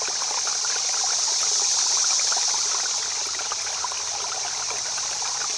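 Steady rush of flowing river water, an even hiss.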